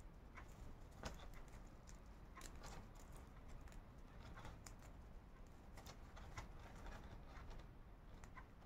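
Faint, irregular crackling and clicking of raffia paper yarn worked with a metal crochet hook as the loose thread ends are pulled through the stitches to hide them.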